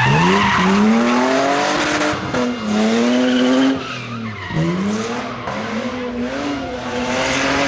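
Rally car at full throttle out of a sideways slide, over a haze of tyre noise. The engine revs climb and fall back twice as it changes gear, then run steadier as the car pulls away.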